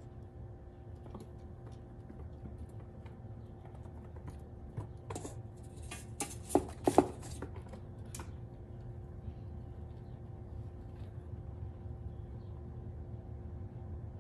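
Fox squirrel cracking and nibbling a peanut shell in small dry ticks. A few seconds in comes a short burst of louder clicks and scrapes as the squirrel's claws scrabble on the hardwood floor while it whirls around.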